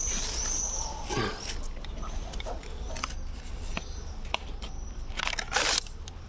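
Hand work on a car part: scattered small clicks and knocks with rustling, a few brief high squeaks near the start and a louder rustle about five seconds in, as the new part is handled and fitted.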